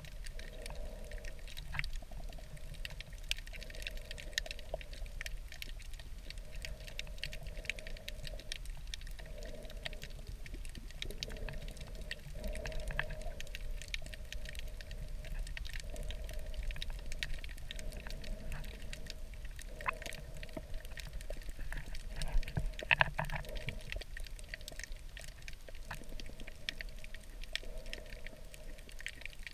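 Underwater reef ambience picked up by a submerged camera: a continuous crackle of fine clicks over a low rumble, with a hum that comes and goes every second or two. A louder burst of clicks stands out about three-quarters of the way through.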